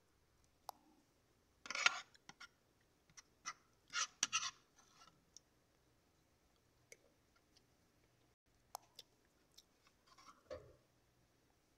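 Metal fork and spoon scraping and clicking on a plastic plate: short scrapes about two seconds and four seconds in, one more near the end, with scattered light clicks between.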